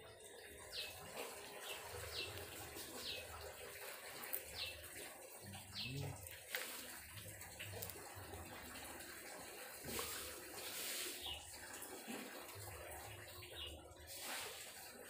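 Wet squelching and scraping as ripe dragon fruit is peeled and cut by hand with a small knife, while a bird repeats short falling chirps about once a second.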